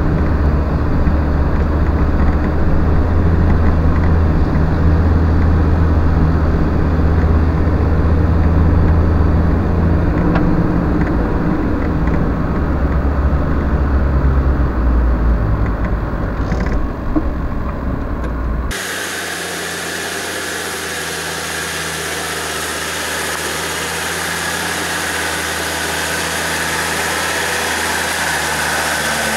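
Land Rover Defender engine running at low revs in first gear, heard from inside the cab as a steady low drone. About nineteen seconds in the sound cuts abruptly to a Defender engine heard from outside, thinner, with a steady hiss over it.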